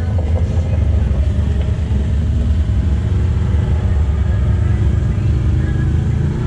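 Vehicle engine idling close to the microphone: a steady, loud low rumble.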